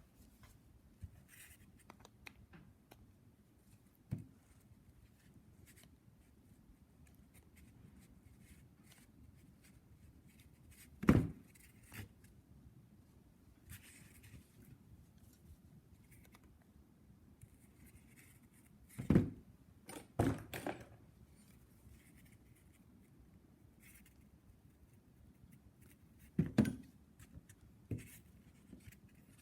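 Tools and small parts being handled on a workbench: scattered clicks and sharp knocks, the loudest about a third of the way in and again around two thirds in, between long quiet stretches.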